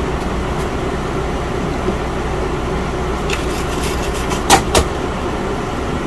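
Steady low background hum with light clicks and taps of hand tools working on a circuit board. Two sharp clicks, about four and a half seconds in, are the loudest.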